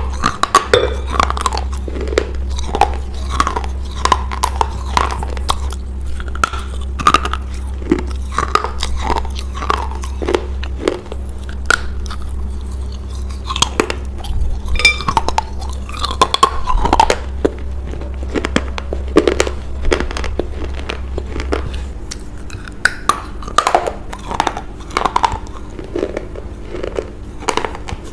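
Close-miked biting and crunchy chewing of pieces of an unglazed baked clay bowl, a dense run of sharp crackles and crunches.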